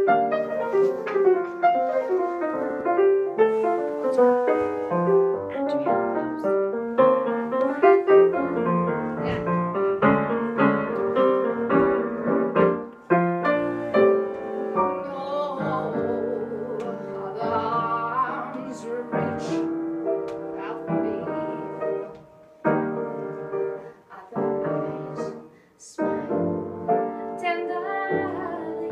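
Piano playing classical-style music, with a voice singing with vibrato about halfway through.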